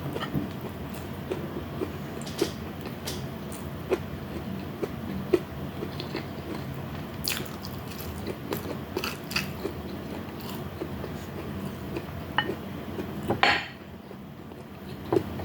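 Close-up eating sounds: chewing and biting food near the microphone, with many small scattered clicks and smacks. A louder, brief crunch comes about 13 seconds in. A steady low hum runs beneath.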